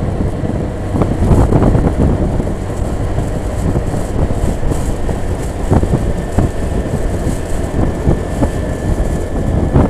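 A motorcycle riding along a concrete road: steady engine and tyre rumble, with wind on the microphone.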